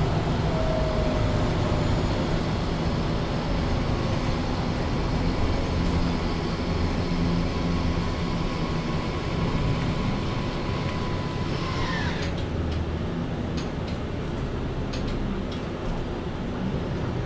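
Inside a MAN Lion's City Ü city bus standing still, its diesel engine idling with a steady low hum. A steady hiss and a faint whine run alongside it and cut off abruptly about twelve seconds in with a short falling sweep. A few faint clicks follow.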